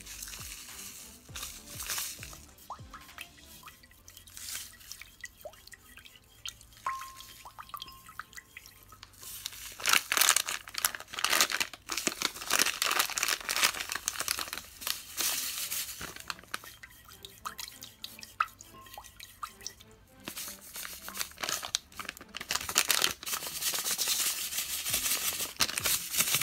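Wooden stir stick scraping and clicking against a ceramic bowl while crystal-growing powder is stirred into the solution, with a gritty crunch from undissolved crystals. Bursts of brisk stirring come about ten seconds in and again over the last few seconds.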